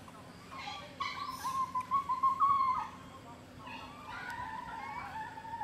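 A long-tailed macaque giving drawn-out, wavering high-pitched calls: one loud call of about two seconds, then a second, quieter one.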